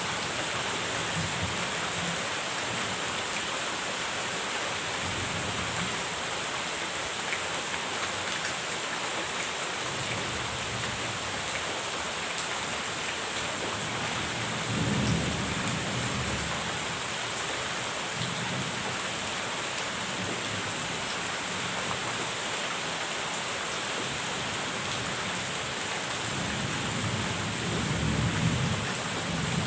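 Steady rain with low rolls of distant thunder now and then, the strongest about halfway through and again near the end.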